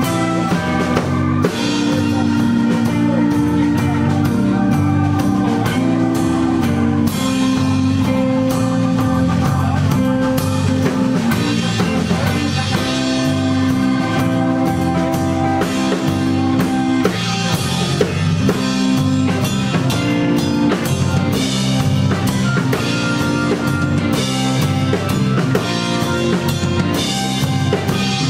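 Live blues-rock band playing: electric guitar, bass guitar, keyboard and a drum kit keeping a steady beat.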